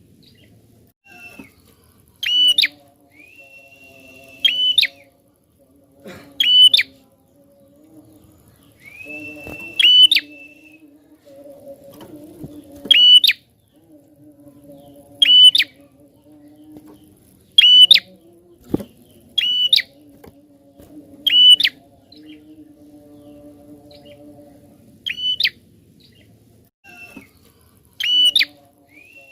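Prinia (prenjak) calling: loud, sharp chirps repeated about every two seconds, some in quick pairs, with a few drawn-out thin whistled notes between them.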